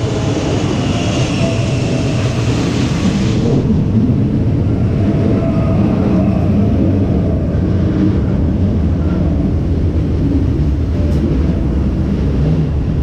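Renfe Serie 446 Cercanías electric multiple unit pulling into a station along the platform, with a loud, steady low rumble of wheels and running gear. A high hiss sounds over it for the first few seconds and stops about three and a half seconds in.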